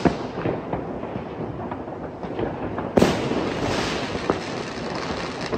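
New Year's Eve fireworks and firecrackers going off in a steady run of bangs and pops, some sharp and some dull. A loud bang about three seconds in is followed by a hissing crackle.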